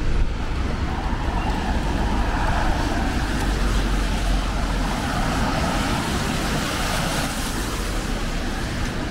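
Steady city street traffic noise, with the hiss of tyres on the wet road and an engine rumble underneath.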